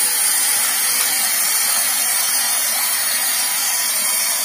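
Kitchen tap running a steady stream of water into a tub of split mung beans being rinsed, with a constant splashing hiss.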